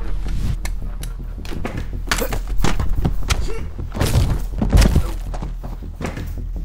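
Fight-scene sound effects: a quick run of punches and body blows, hit after hit, with the heaviest couple of thuds about four to five seconds in.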